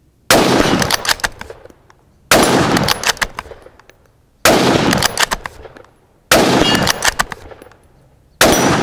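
Five rifle shots from a Steyr Scout Stainless bolt-action rifle in .223 Remington, fired about two seconds apart, each trailing off in a long echo. The rounds fire one after another from the spare magazine without the earlier failure to feed.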